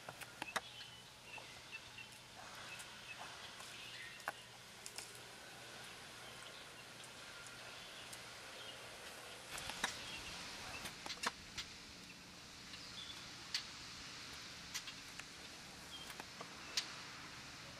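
Scattered sharp cracks and snaps of bark and twigs as an African elephant strips and chews bark from a tree, irregular and faint over a low outdoor hiss, with a cluster of louder cracks about ten seconds in.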